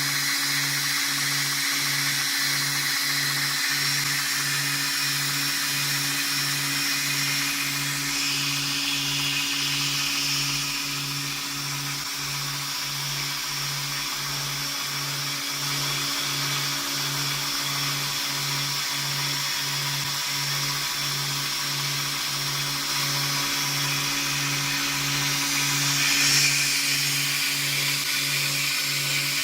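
Homemade belt grinder running: an electric motor hum with a low, even pulse a little faster than once a second, and the hiss of the sanding belt. The hiss shifts about a third of the way in and swells briefly near the end.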